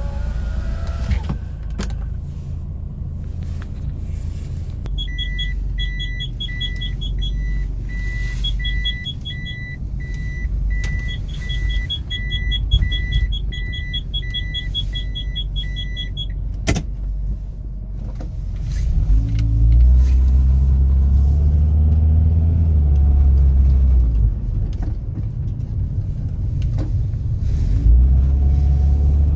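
Cabin sound of a 1990 Toyota Sera on the road, not yet fully warmed up: steady engine and road rumble. A repeating high electronic beep sounds about twice a second for some ten seconds and ends with a sharp click. About two-thirds of the way in, the engine grows louder as the car accelerates.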